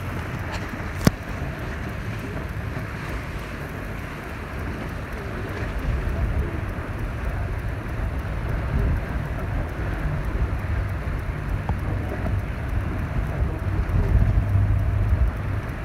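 Motorboat under way: a steady engine drone mixed with water rushing past the hull and wind rumbling on the microphone, growing a little louder in the second half. A single sharp click about a second in.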